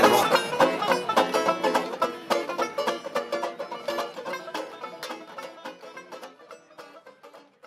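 Music: fast picked banjo notes, gradually fading out over several seconds.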